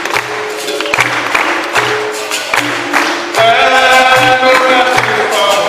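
Capoeira roda music: berimbaus, pandeiros and an atabaque drum playing a steady rhythm. Voices sing over it, louder from about three and a half seconds in.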